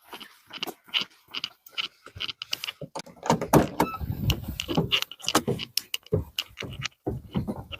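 Keys jangling among a quick run of clicks and knocks, with heavier thumps from about three seconds in.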